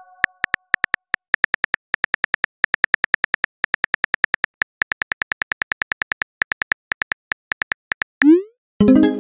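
Synthetic phone-keyboard click sound effects, one per letter, several a second as a text message is typed out, followed near the end by a short rising swoosh and a ringing chime as the message is sent.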